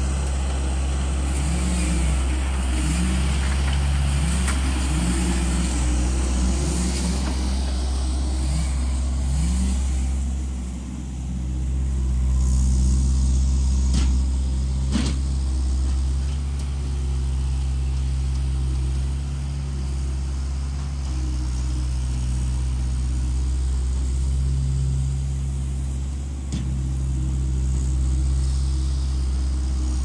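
Bobcat S175 skid steer loader's diesel engine running steadily while it works. Its note rises and falls in short glides several times during the first few seconds, and two sharp knocks come about a second apart midway through.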